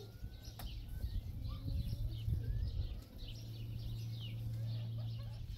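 Many small birds chirping repeatedly in short falling notes, over a low steady hum and rumble.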